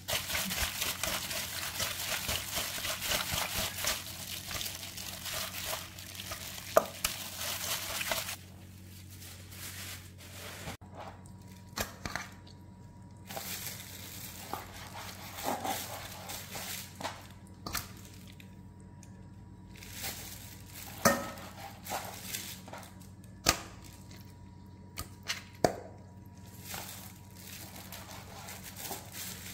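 Large kitchen knife cutting raw pork on a plastic cutting board, with scattered sharp knocks of the blade on the board and pieces of meat dropped into a metal bowl. For about the first eight seconds a dense crackly rustle covers it.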